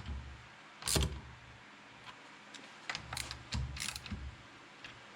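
Nuts on a gear-cutter attachment's shaft being tightened with a wrench: a few sharp metallic clicks, one loud one about a second in and a cluster of clicks a few seconds later.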